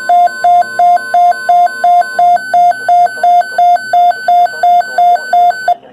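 Electronic alert beeper sounding a rapid string of identical short beeps, nearly three a second, signalling the start of a weather warning; it stops near the end.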